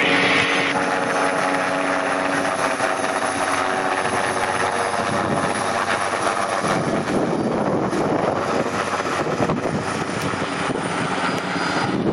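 Vintage single-rotor helicopter flying low overhead, its engine and rotor running steadily. A pitched hum in the first half gives way, about two-thirds of the way in, to a rougher, noisier rotor sound as it passes and moves off.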